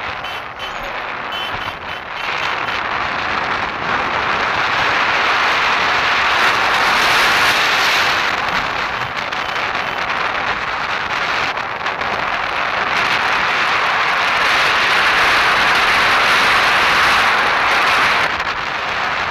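Wind rushing over the microphone of a moving motorcycle, with road and riding noise beneath it. It gets louder about four seconds in as the bike picks up speed.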